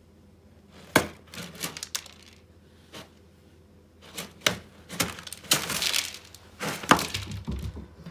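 Cat scrabbling in a litter box of wood-pellet litter, kicking pellets out so they clatter onto the plastic box and the hard floor in sharp clicks and rattles, with a scratchy burst of digging in the middle. There are a few low thuds near the end.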